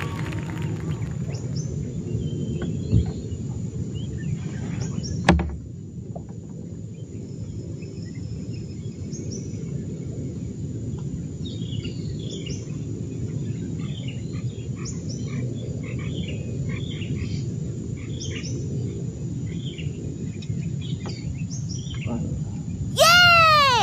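Birds chirping in short scattered calls over a steady low rumble, with a couple of knocks early on. A loud, pitched, whistle-like call sounds briefly near the end.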